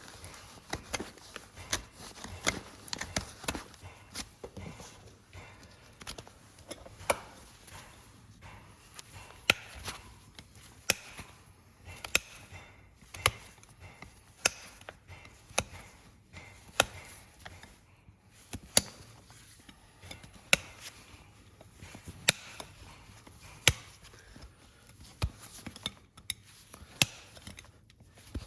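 Hoof-trimming tools cutting into the horn of a horse's hoof: irregular sharp cracks and snaps about once a second or so, with softer scraping between the cuts.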